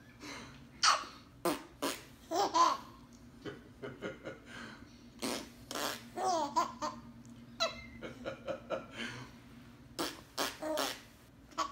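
A man makes repeated mouth fart sounds (raspberries), short blasts one after another, and a six-month-old baby laughs between them.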